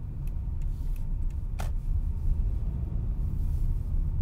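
Steady low road rumble of a car driving, heard from inside the cabin, with a light click about a second and a half in.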